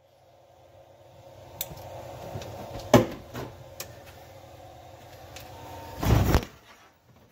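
Scattered clicks and knocks of hands and tooling at a CNC milling machine as a 1/4-inch end mill is fitted, the sharpest knock about three seconds in, over a low steady hum. A brief loud rush of noise comes about six seconds in.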